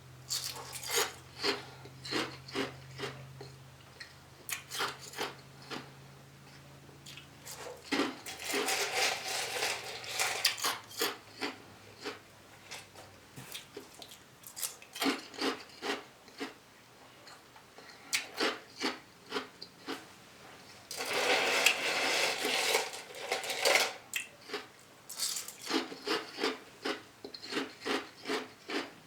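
Close-miked chewing in an eating show, with a steady rhythm of about two to three chews a second. Twice the sound turns into a denser, louder spell of crunching or rustling lasting about three seconds, once about eight seconds in and again near twenty-one seconds.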